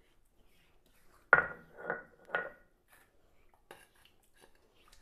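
Three sharp knocks with a metallic ring, about half a second apart, as ground garlic paste is scraped off the grinding stone into a steel bowl; a few faint clicks follow.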